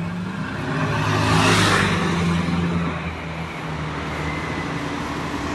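A motor vehicle passing close by on a street: engine hum with tyre noise that swells to a peak about a second and a half in, then fades into steady traffic noise.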